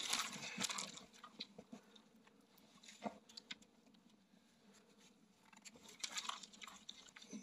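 Quiet clicks, scrapes and crunches of hand cutters working at a wire snare, with snow being disturbed. There is a louder rustle at the start and a cluster of clicks about six seconds in.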